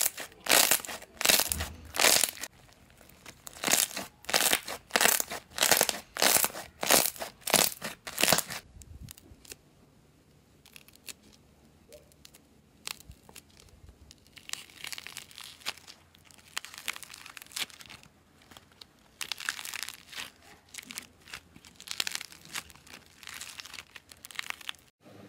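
Glossy blue slime squeezed in a fist, giving crackly squelches about twice a second for the first eight seconds. After a quieter pause, a rainbow slab of small soft balls is squeezed and pulled apart with a softer, quieter crackling.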